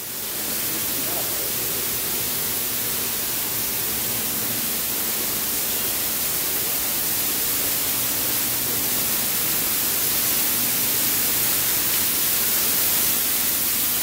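Steady rushing of water from an artificial waterfall, slowly growing a little louder.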